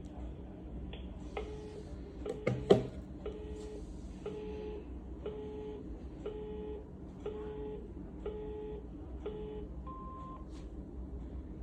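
Panasonic cordless phone handset sounding an intercom ring tone: a low beep about half a second long, repeated about once a second. A couple of sharp button clicks come just after it starts, and a single higher beep comes near the end.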